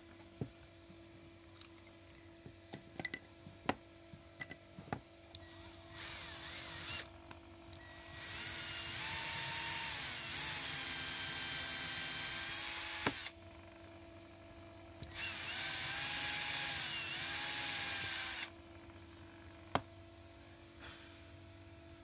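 Cordless drill boring small holes into a wooden speaker front panel: a brief run about six seconds in, then two longer runs of several seconds each. Before it, a few sharp ticks and taps.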